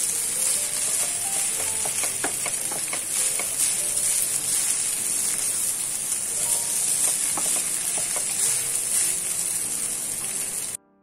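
Fried rice sizzling in a hot nonstick pan while being stirred and turned with a wooden spatula, with short scrapes and taps of the spatula against the pan. The sound cuts out briefly near the end.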